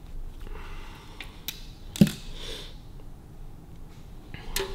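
Hand crimping pliers squeezing an electrical terminal onto the end of a wire: a few small clicks and one sharp snap about two seconds in, then another click near the end.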